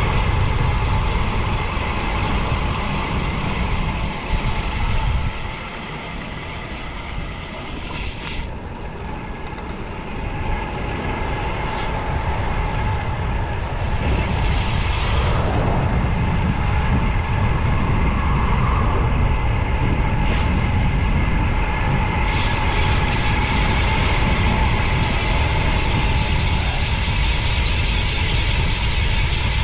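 Wind rushing over the camera microphone on a road bicycle going fast downhill, a steady low rumble. It dips for a few seconds about five seconds in, then builds back up.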